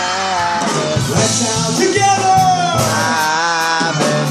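Upbeat children's Shabbat song: singing over instrumental backing with a steady beat.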